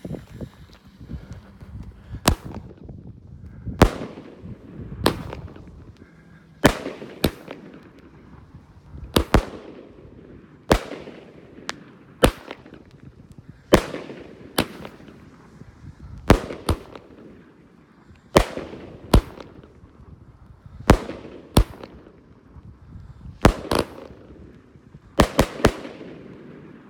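Pyrostar Atlas Moons 12-shot aerial cake firing: sharp bangs about every second and a half, some in close pairs, each trailing off briefly, with three quick bangs near the end.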